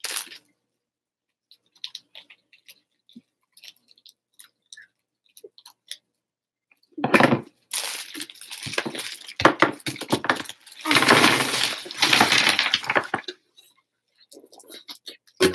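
Wrapped candy crinkling and clicking as a hand rummages in a plastic bowl, then, from about halfway through, a loud rustling clatter of a bowlful of wrapped candy tipped out onto a table.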